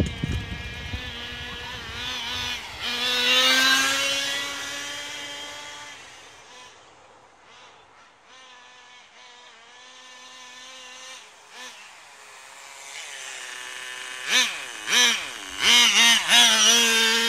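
Small nitro engine of a 1/10 Tamiya Raikiri engine RC car, a high buzzing whine that swells as the car passes, fades into the distance and comes back. Near the end it is close by, revved in short, sharp bursts. A bicycle rolls past close by at the start.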